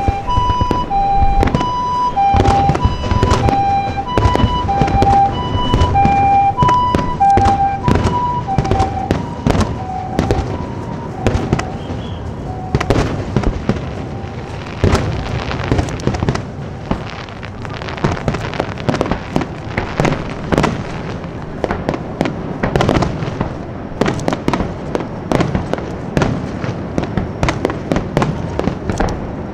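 A rapid barrage of fireworks shells bursting, dozens of sharp bangs in quick succession. For about the first eleven seconds a two-tone siren alternates high and low beneath the bangs, then fades out.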